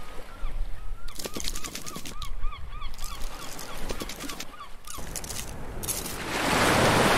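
Cartoon sound effects for an animated crab: a run of short chirping calls, about three a second, with clusters of rapid clicks. Near the end comes a rising rush of noise.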